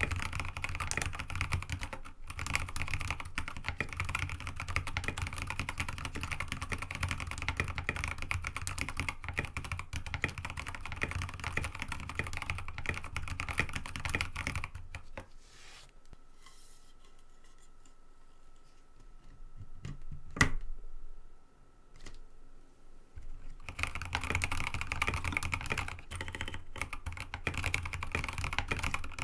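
Fast, continuous typing on an mStone Groove T87A mechanical keyboard with Kailh Box Ancient Gray switches, an aluminium plate and MA keycaps. The typing stops about halfway through for several seconds, broken by one sharp keystroke, then resumes.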